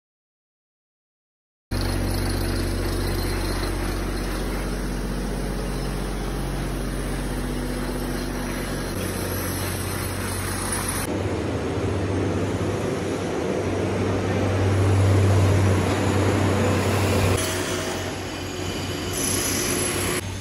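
Silence for about a second and a half, then steady construction-site noise: a low machine hum under a continuous wash of noise, shifting abruptly a few times.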